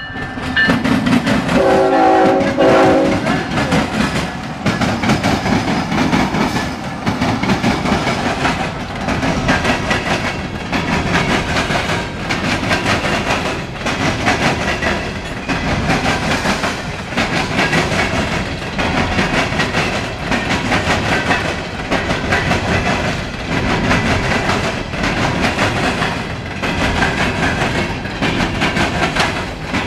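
Freight locomotive horn sounding one short chord of several tones about two seconds in, then the rumble and rhythmic clickety-clack of a long string of CSX coal hopper cars rolling past, the loudness swelling and dipping every couple of seconds as each car's wheels cross the rail joints.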